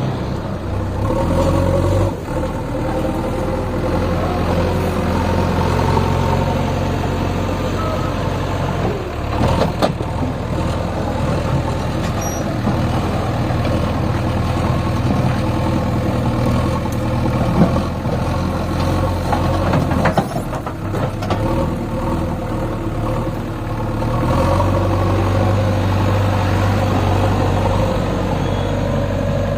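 Diesel engine of a JCB 3DX backhoe loader running steadily, its note shifting now and then, with a few sharp knocks about ten, seventeen and twenty seconds in.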